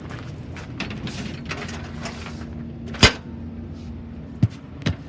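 One loud sharp knock about three seconds in and two lighter knocks near the end, over a steady low rumble.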